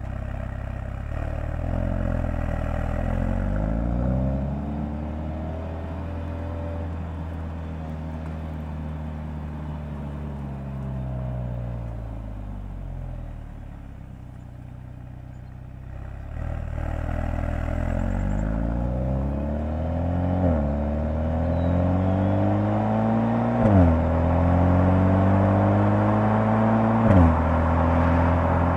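The 2022 Mercedes-AMG GLA 45's turbocharged 2.0-litre four-cylinder heard from inside the cabin while driving. The revs rise, then fall away as the car eases off. In the second half it accelerates hard, the pitch climbing through the gears with three quick upshifts, each a sudden drop in pitch, the last two marked by a short crack from the exhaust.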